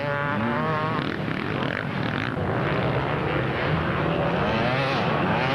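Several dirt bike engines running together, their pitch rising and falling as the riders work the throttles; a rising rev just after the start.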